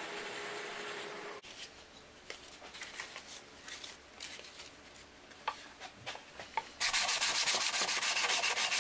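A power sander runs steadily for the first second and a half, then stops. Small clicks and crinkles follow as sandpaper is handled and folded around a block. About seven seconds in, loud hand sanding starts: 100-grit sandpaper on a block rubbed over the wooden box side in quick, even strokes.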